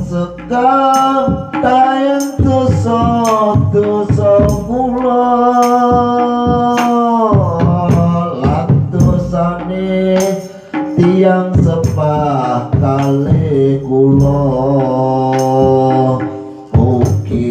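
Sholawat sung through a microphone and PA, accompanied by a rebana ensemble of frame drums, kendang and kecer cymbals. The voice moves in ornamented phrases, with one long held note in the middle that slides down at its end.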